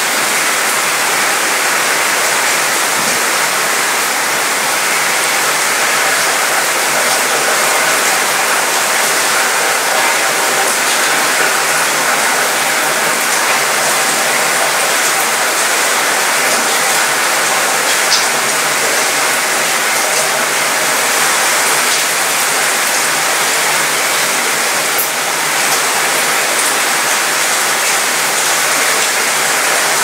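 Steady rain falling on a ship's mostly metal balcony and railing, the drops rattling on the metal. A few sharper single drop ticks stand out, over a faint low hum.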